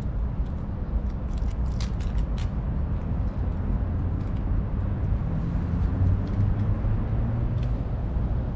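Outdoor city ambience: a steady low rumble of road traffic, with a short cluster of sharp clicks about two seconds in.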